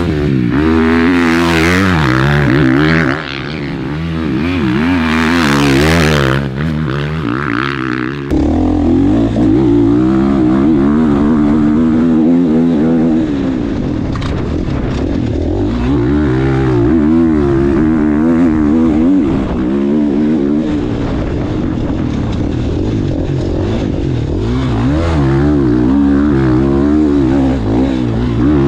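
Dirt bike engine revving up and down through the gears as it is ridden hard, with bursts of rushing noise in the first few seconds. From about eight seconds in it is heard from on the bike, the engine note rising and falling again and again.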